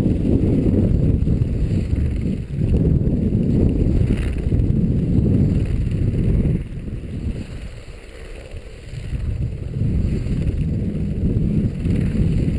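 Wind buffeting the camera microphone: a loud, gusting low rumble that eases off for a couple of seconds around the middle, then picks up again.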